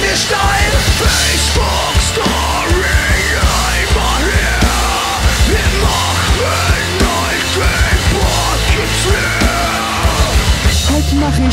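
Live punk-rock band playing loud: distorted guitar, heavy bass and pounding drums under shouted lead vocals. About a second before the end the music changes, with a steady held tone coming in over a new beat.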